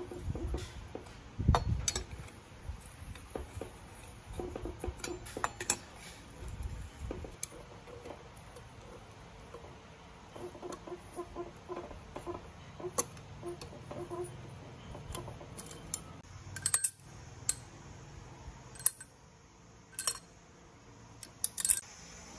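Metal clinks, taps and clicks of hand tools and engine parts being handled on an air-cooled motorcycle cylinder head: a sharp knock about one and a half seconds in, a run of quick light ticks around the middle while a head bolt is turned with a socket tool, and a few sharp clicks near the end.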